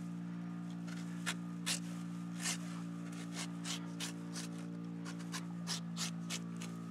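Old Hickory butcher knife shaving bark and wood off a felled aspen log: a run of short, sharp scraping strokes, about two to three a second, that come faster in the second half, over a steady low hum.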